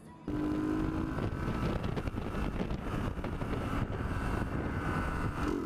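Riding noise on a sport motorcycle: wind buffeting the rider's camera microphone over the motorcycle's running and road noise. It cuts in suddenly just after the start.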